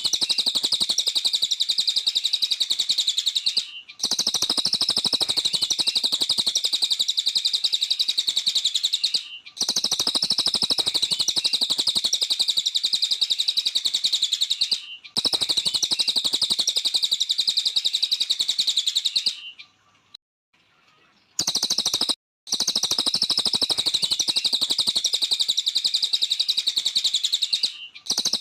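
Cililin bird singing a fast, unbroken high-pitched chattering song in runs of about five seconds. Each run stops abruptly, and one gap of about two seconds falls near the end.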